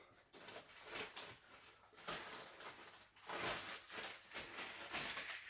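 Soft, irregular rustling and scraping as a plastic-covered LED string light is unwound and handled.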